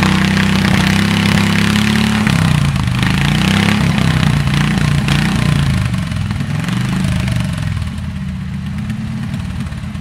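Harley-Davidson VFD 1200cc V-twin engine driving a Dolmar Type C two-man chainsaw through a fir trunk. The engine runs steadily at first. From about two seconds in its speed rises and falls as the chain works in the cut, and it eases off and gets quieter near the end.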